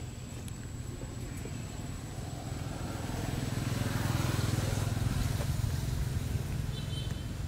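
Low engine rumble of a motor vehicle passing, swelling to its loudest about four to five seconds in and then easing off.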